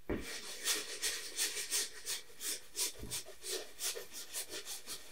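Bristle brush scrubbing oil paint onto a stretched canvas: a quick series of short, rasping strokes, about four a second.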